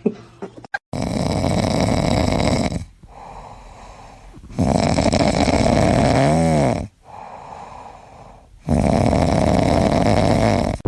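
Loud snoring: three long snores about four seconds apart, with quieter breaths between them. The middle snore carries a short whistling note that rises and falls.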